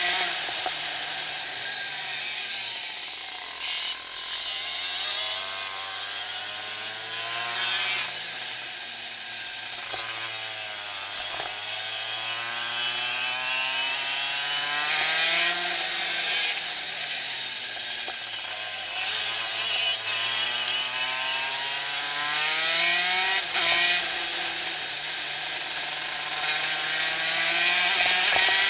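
Kart engine running at racing speed as heard on board. The pitch climbs and falls again and again, each rise ending in a drop, as the kart accelerates through its gears and slows for the corners.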